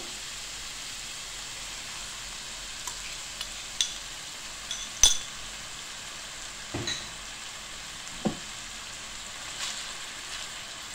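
Ground beef sizzling steadily in a hot nonstick frying pan as a soy sauce mixture is spooned in from a bowl and then stirred with a wooden spoon. A few sharp clinks and knocks of spoon on bowl and pan, the loudest about five seconds in.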